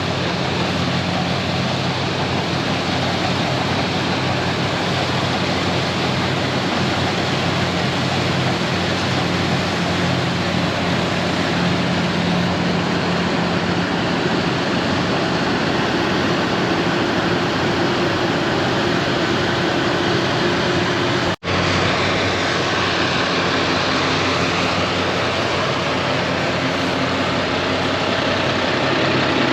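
New Holland TX62 combine harvester running steadily, a constant engine hum under a thick wash of machine noise. About two-thirds of the way through, the sound drops out for a split second and comes straight back.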